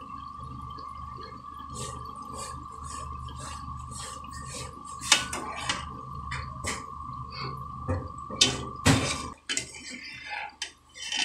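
Murukku deep-frying in hot oil in an aluminium kadai: the oil sizzles with scattered crackling pops. A metal slotted spoon clinks and scrapes against the pan a few times, loudest around five and nine seconds in. Under it runs a steady faint hum that stops about nine seconds in.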